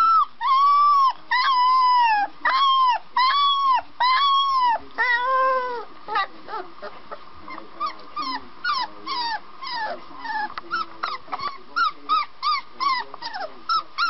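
A young puppy barking in high-pitched yaps, each one rising and falling in pitch, about two a second, then after about six seconds breaking into quicker, shorter yips about three or four a second.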